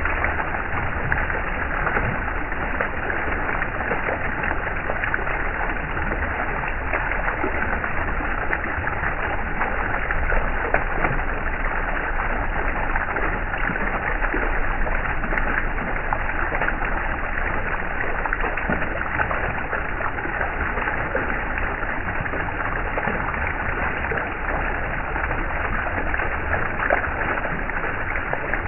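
Flowing stream water: a steady rush with small splashes and gurgles throughout.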